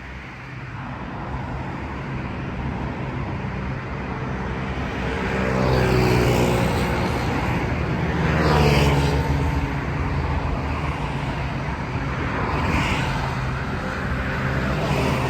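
City street traffic: vehicle engines running and passing, with one louder vehicle going by about eight to nine seconds in.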